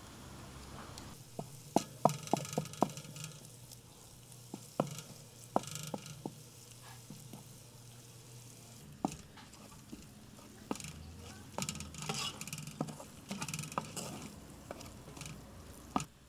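Metal spoons clinking against each other and the rim of a steel pot as thick pomegranate paste is scraped off into frying onion and tomato paste, followed by a wooden spatula stirring and scraping the mixture over the pan bottom, with a light sizzle of hot oil.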